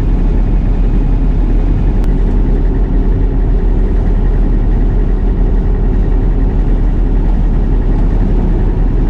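Old combine running steadily with its header and sickle engaged, a loud low drone of engine and machinery, tested after a belt was smoked in the first minutes of operation.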